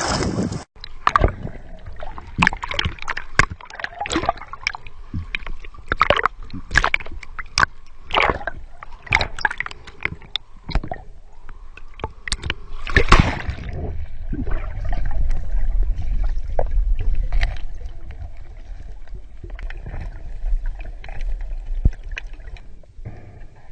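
Water splashing and gurgling around a GoPro as it goes under a river, with many sharp clicks and knocks for about the first half, a loud surge of water about halfway, then a steady low underwater rumble.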